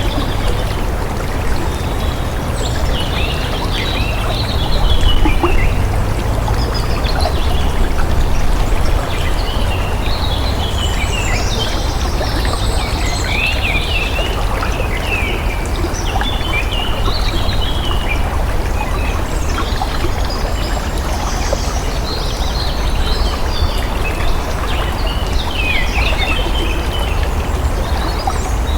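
Steady rush of running water with many small birds chirping and twittering over it.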